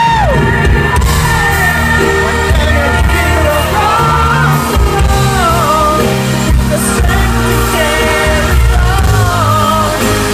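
Live pop ballad with a band: a female singer's wordless vocal runs gliding up and down over the accompaniment, with some yells from the crowd.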